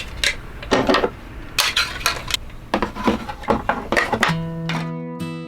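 Dishes and cutlery clattering in a quick run of sharp clinks and knocks. Acoustic guitar music starts near the end.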